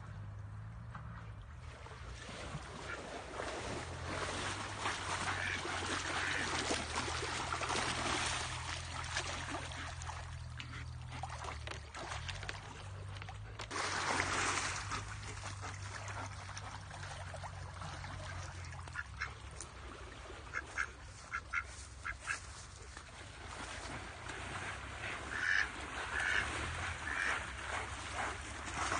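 Duck quacking, with runs of short quacks in the second half, over a steady background rush of noise. A louder burst of noise comes about halfway through.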